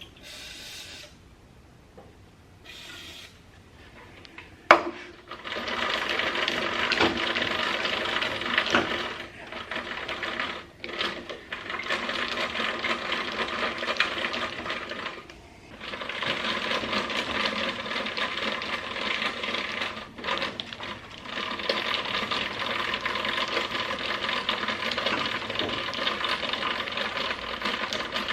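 Two short hissing sprays of WD-40, then a sharp click and the JET JPM-13 planer/molder's height-adjustment crank being turned in long stretches, a dense rapid mechanical clatter with a few short pauses. The mechanism is stiff and hard to turn, and has just been lubricated.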